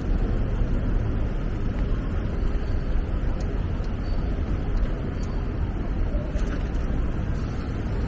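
Steady city street ambience: a continuous low rumble of road traffic.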